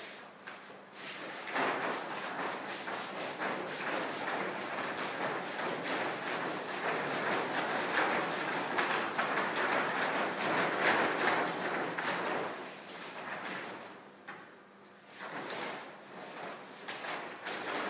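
A long sheet of painted paper rustling and crackling as it is rolled up and dragged across a floor. The sound dies down briefly about three seconds before the end, then picks up again.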